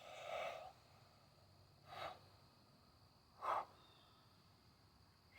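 A man breathing hard from exertion after levering a heavy sledgehammer: a longer exhale at the start, then two short exhales about two and three and a half seconds in.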